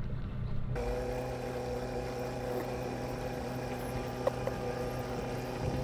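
Boat motor running steadily at low speed, a steady hum with no change in pitch. A single light click comes about four seconds in.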